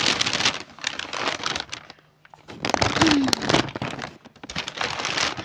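Brown paper shopping bag rustling and crinkling as groceries are handled inside it, in two stretches with a short pause about two seconds in.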